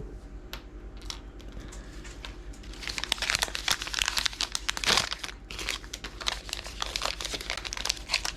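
Thin plastic wrapping on a Mini Brands toy packet crinkling and tearing as it is opened by hand: a few light clicks at first, then steady dense crinkling from about three seconds in.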